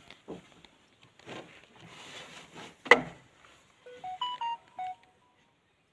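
A single sharp knock about three seconds in, the loudest sound. About a second later comes a quick run of short electronic beeps at several different pitches, lasting about a second.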